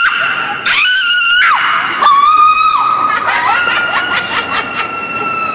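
Loud, high-pitched excited cries: several long drawn-out notes one after another, the second wavering, then a long steady one to the end.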